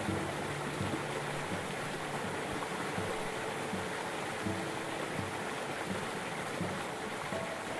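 Steady rush of running water, an even hiss with no breaks, and a few faint low tones ringing under it.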